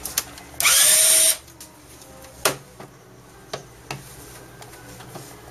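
A loud hissing burst lasting about half a second, then a few sharp clicks and knocks from hands working a cable at the back of an HP inkjet all-in-one printer.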